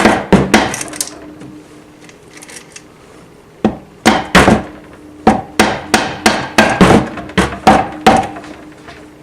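Rubber mallet blows on the cylinder block of a Suzuki GSF 400 Bandit engine, knocking it loose from the crankcase so the cylinder can be lifted off. A quick burst of four knocks, a pause, then a steady run of about a dozen blows, light rather than full-force.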